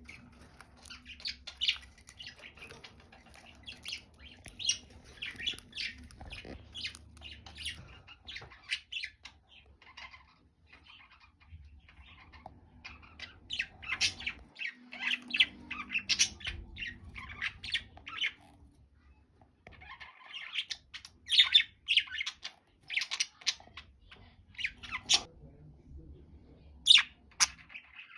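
Budgerigars chirping and squawking: many short, sharp calls in irregular clusters, with a couple of brief pauses.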